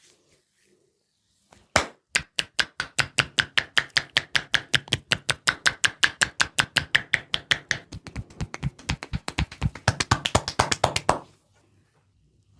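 Indian head massage with percussive hand strikes: the hands beat on the head in rapid, even claps, about five a second. They start about two seconds in and stop a second or so before the end.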